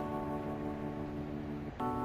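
Background music: soft sustained chords, changing to a new chord near the end.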